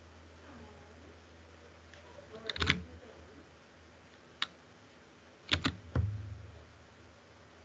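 A handful of sharp clicks and knocks: a quick cluster about two and a half seconds in, a single click near four and a half seconds, and three more close together around five and a half to six seconds, the last with a low thud. A faint low hum lies underneath.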